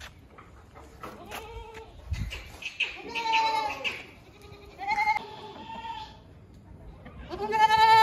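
Teddy goats bleating in their pens, about four separate wavering calls. The last call, near the end, is the loudest and longest.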